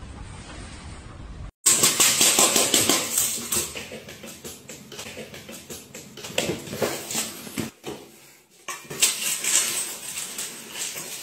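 Dry cat food rattling and clinking in a stainless steel bowl: a run of sharp metallic clicks that starts suddenly about a second and a half in, eases off, and picks up again near the end.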